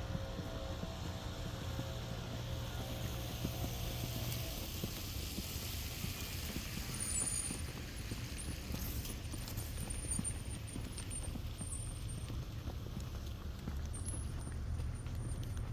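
A motor vehicle running close by over a steady low rumble: its engine hum stops about four seconds in, and a hiss like tyres on a wet road swells and fades through the middle.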